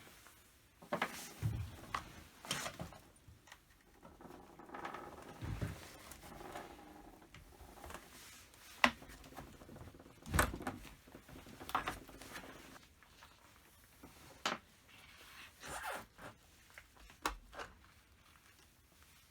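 Irregular clicks, brief scrapes and rattles of hand tools and small chainsaw parts being handled during disassembly.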